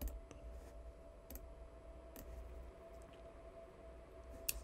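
A few scattered computer mouse clicks, the sharpest one near the end, over a faint steady hum.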